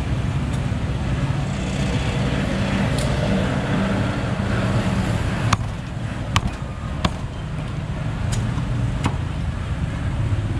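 Meat cleaver chopping through roast duck on a chopping block: sharp single knocks, about five or six of them in the second half, over a steady low rumble of street traffic.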